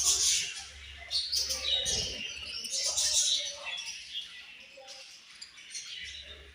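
Budgerigars chirping and chattering together, many short overlapping high calls, with a brief low thump about two seconds in.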